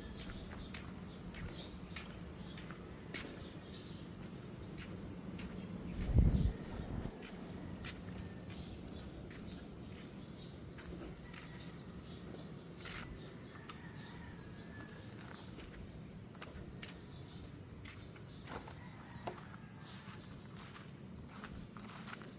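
Steady high-pitched chirring of insects, with scattered light clicks. A single low thump comes about six seconds in.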